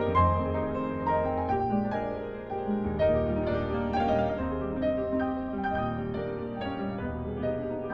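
Classical piano playing: notes struck in quick succession over held bass notes.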